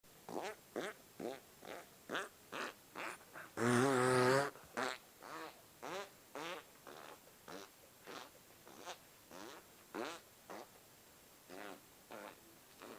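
A rapid string of short fart sounds, about two or three a second, with one longer, louder, wobbling fart about four seconds in.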